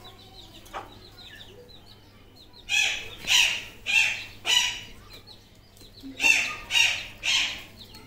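Birds in a pen of pigeons and chickens: faint chirps, then two runs of loud, sharp calls about half a second apart, four and then three.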